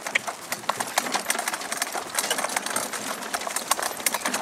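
A pair of ponies pulling a sledge over snow at speed: their hoofbeats and the rattle of harness and sledge make a fast, dense, irregular run of clicks and knocks over a steady hiss.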